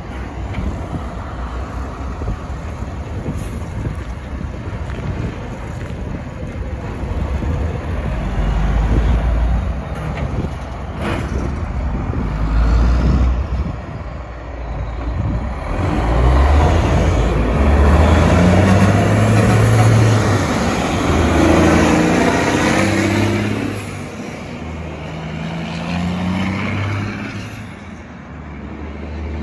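Diesel semi trucks and road traffic passing. In the second half a tractor-trailer pulls away, its engine climbing in pitch and dropping back several times as it shifts up through the gears.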